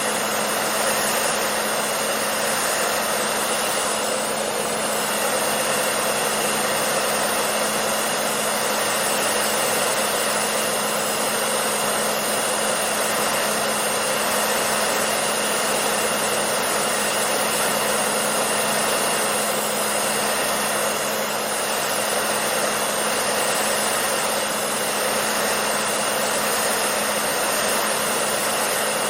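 Hair dryer running steadily: a constant rush of blown air over a steady motor hum.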